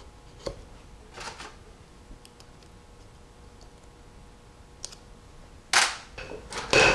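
Light metal clicks as steel gear pins are fitted by hand into a Powerglide planetary carrier. Near the end come a few loud, sharp metal knocks with a brief ring.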